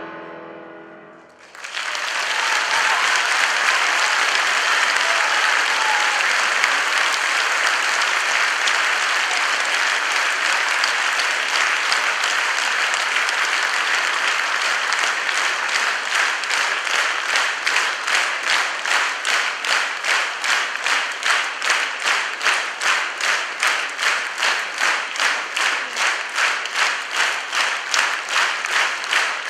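The piano's final chord dies away, and about a second and a half in the concert audience breaks into loud applause. About halfway through, the clapping falls into rhythmic clapping in unison.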